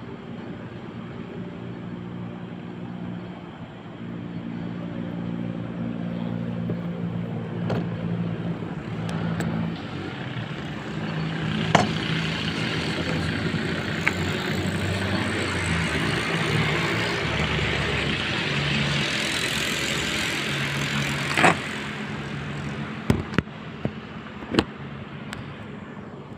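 Steady hum of road traffic, swelling into a louder rush of noise through the middle, with a few sharp clicks and several more close together near the end.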